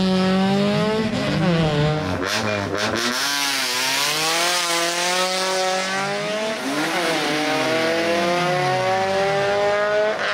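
Opel Kadett GSi race car's four-cylinder engine accelerating hard, its pitch climbing again and again through the gear changes. About two thirds of the way in, a second engine is heard with falling pitch across it.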